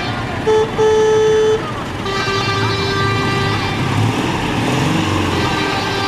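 Car horns honking over idling small car engines. There is a short toot and then a longer blast in the first second and a half, then a second steady horn note for over a second. Near the end, one engine revs up.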